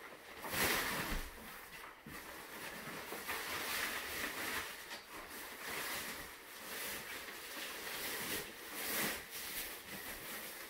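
Rustling and crinkling of a wagon weather cover made of fabric with clear plastic windows as it is pulled and draped over the canopies, in uneven swells with louder swishes about a second in and again around the middle and near the end.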